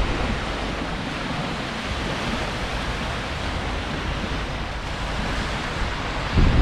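Small lake waves washing and lapping onto a sandy shore: a steady, even wash of water noise. Near the end, wind buffets the microphone with a louder low rumble.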